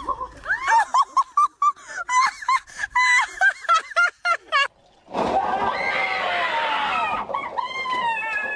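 High-pitched laughter in rapid short bursts for the first half, then a long, loud stretch of shrieking and laughing, with another shriek near the end.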